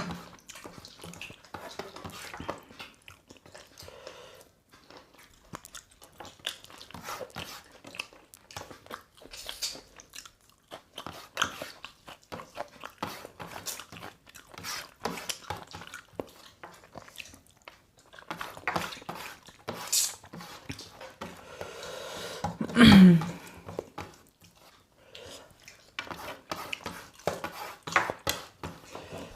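People chewing and biting into chicken, many small irregular wet clicks and crunches of eating. About two-thirds of the way through there is one louder brief sound that falls in pitch.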